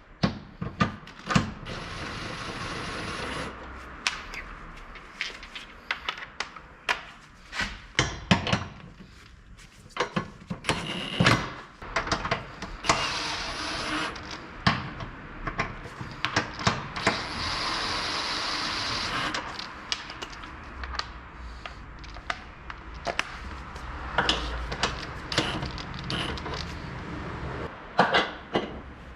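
Workshop repair work on the car's front suspension: irregular clinks and knocks of hand tools and metal parts, with two short steady hisses near the middle.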